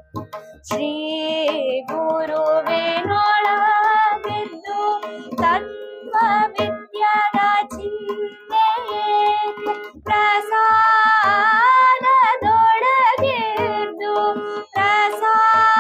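A girl singing a Kannada vachana melody in raga Bibhas, her voice gliding through ornamented phrases, accompanied by harmonium and tabla with low bass-drum strokes underneath.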